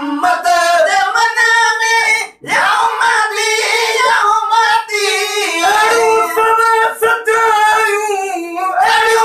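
Men singing a devotional song, one voice taking the lead and then others joining in, with a brief break about two and a half seconds in.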